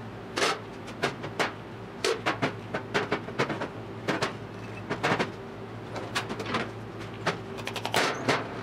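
Irregular sharp metal clanks and knocks from a Triumph GT6 front hub and suspension assembly being handled and worked apart on a steel-topped table.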